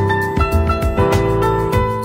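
Instrumental background music with held melodic notes that change every fraction of a second over a regular percussive pulse.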